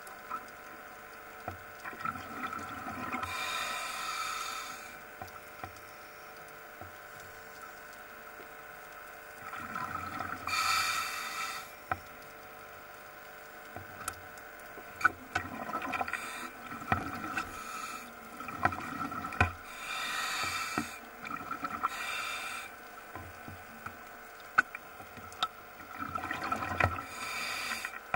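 Scuba diver's regulator underwater: bursts of exhaled bubbles roughly every five or six seconds, with a faint steady hum and scattered clicks in between.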